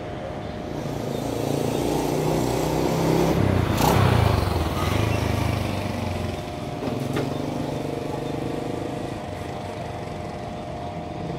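Motorcycle engines passing over a railway level crossing. One draws close and is loudest about four seconds in, then fades, and lighter traffic runs on.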